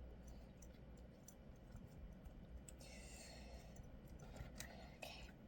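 Near silence: quiet room tone with a few faint, scattered clicks and a brief soft hiss about three seconds in.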